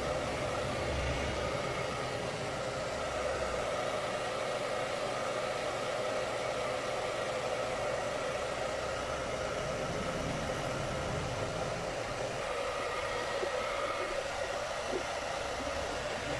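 Handheld hair dryer running steadily on one pitch, blowing onto a silkscreen frame to dry its freshly coated photo emulsion.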